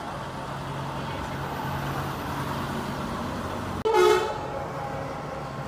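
Street traffic running steadily, with a vehicle engine humming past. About four seconds in comes a single short, loud car horn toot.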